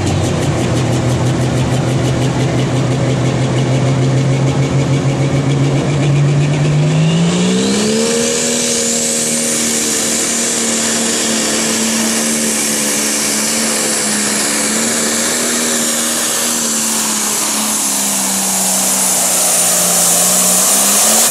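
Turbocharged diesel engine of a John Deere Pro Stock pulling tractor, running steadily at first, then revving up hard about seven seconds in with a rising turbo whistle. It then holds at full power under load as it pulls the sled, sagging briefly and climbing again near the end.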